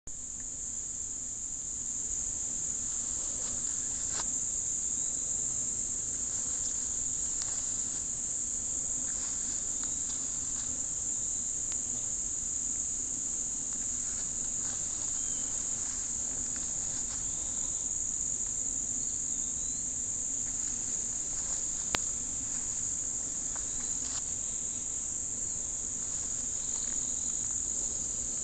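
A steady, high-pitched chorus of insects, crickets or similar, running unbroken, with faint scattered ticks and one sharp click about 22 seconds in.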